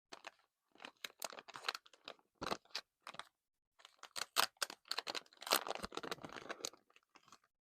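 Blind-pack masking tape packaging being handled and opened by hand: crisp crinkling and clicking in two stretches with a short pause between.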